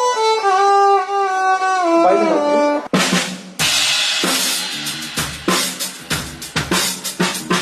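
A violin holds and slides through a falling melodic phrase. About three seconds in, a drum kit comes in with a cymbal crash and plays a beat on bass drum, snare and cymbals.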